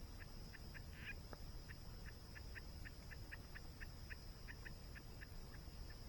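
Nature ambience: a steady high-pitched insect buzz with a rapid series of short chirps, about four a second, over a low rushing of water from the waterfall. A single faint crackle from the campfire comes about a second in.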